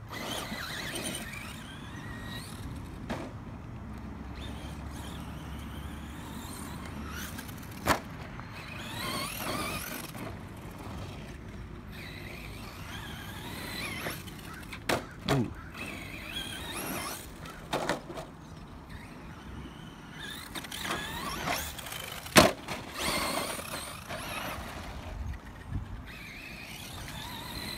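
Brushless electric motor of a 2WD RC monster truck whining up and down in pitch as it accelerates and lets off over dirt jumps. Several sharp knocks come through, the loudest about two-thirds of the way in, as the truck lands.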